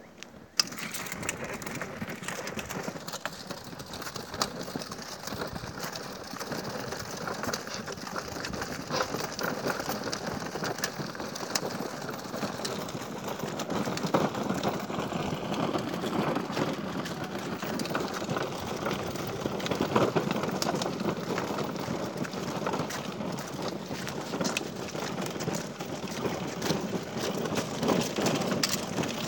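Child's battery-powered ride-on toy car driving over brick paving: a steady rattling rumble of its hard plastic wheels and drive, with many small clicks. It starts suddenly about half a second in.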